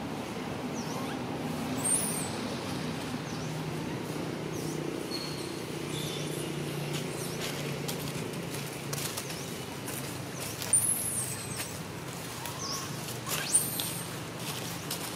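Outdoor ambience: a steady low drone with scattered short, high chirps and whistles, the sharpest about two seconds in, around eleven seconds and near the end.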